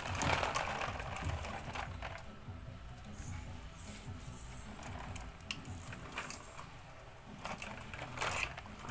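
Glass marbles and small plastic toy balls clicking and rattling against wood, plastic and concrete, in a scatter of sharp clicks that come thicker near the start and again near the end.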